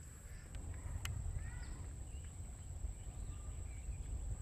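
Rural outdoor ambience: a low, uneven rumble under a few short bird chirps, with a steady thin high-pitched tone throughout. There is a single sharp click about a second in.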